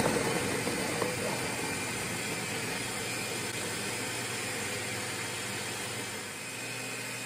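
Ninja blender motor running steadily at speed, a whirring hiss with a low hum, its blades cutting cold butter into flour for a pie crust.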